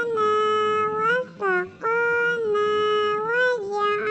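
A high-pitched singing voice holds long, steady notes, each rising slightly at its end, with a short break and a brief lower note about a second and a half in.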